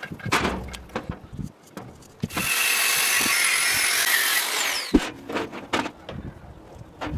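A power tool runs steadily for about two and a half seconds in the middle, with a fading whine as it stops, between sharp knocks and clatter from handling workpieces.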